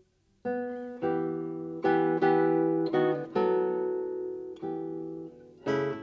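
Background music: slow plucked guitar notes, each struck sharply and left to ring and fade, starting about half a second in after a brief gap.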